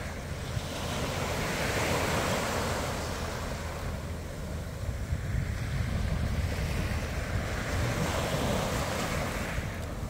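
Small waves breaking and washing up on a sandy beach, the surf swelling twice: about a second in and again around six seconds in. Wind rumbles on the microphone underneath.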